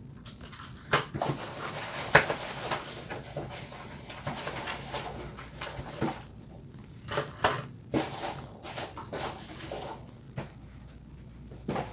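Hands rummaging through foam packing peanuts in a cardboard box, with an irregular crunchy rustle. Sharp clicks and taps come several times as plastic blister packs are pulled out and set down on cardboard.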